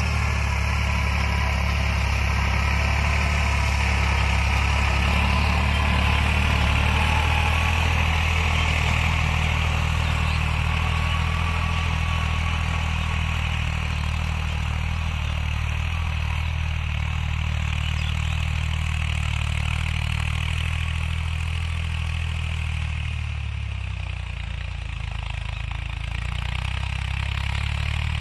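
Diesel farm tractor engine running steadily while pulling a rotavator through dry soil. The sound eases a little about three quarters of the way through, then picks up again.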